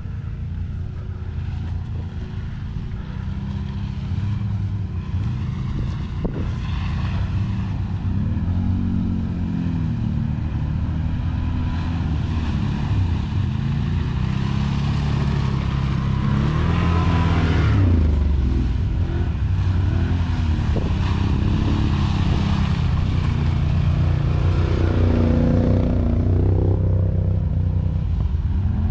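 Several ATV engines approaching, growing louder over the first half, with the engine note rising and falling as they are throttled on and off.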